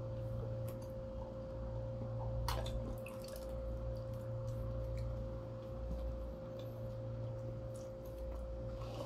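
Wet mouth clicks and smacks of people chewing pizza, scattered through, the sharpest about two and a half seconds in, over a steady low hum with a thin constant tone.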